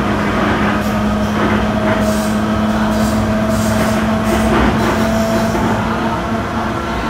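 Vintage Sydney 'Red Set' electric train running on its camshaft-controlled traction motors: a steady motor hum with a higher tone over the noise of the train. Short bursts of hiss come and go in the middle.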